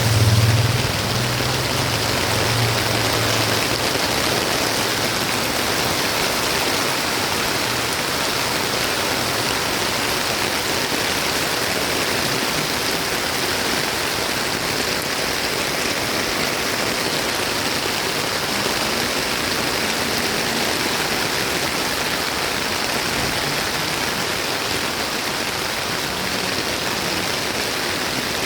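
Heavy monsoon rain falling steadily, an even hiss. A low rumble sounds at the start and dies away within about four seconds.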